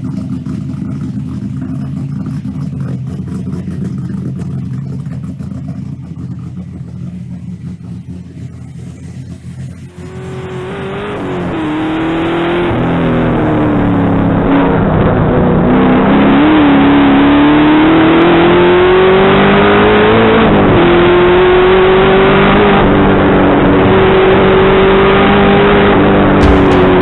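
LS3-based V8 of a Holden Commodore VK Group C race car, running at a steady idle. About ten seconds in it switches to a much louder sound of the engine revving hard, its pitch climbing and dropping several times, with a sharp drop a little past the middle like a gear change.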